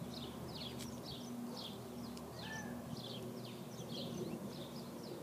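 Birds chirping: short, high chirps, several a second, over a faint steady low hum.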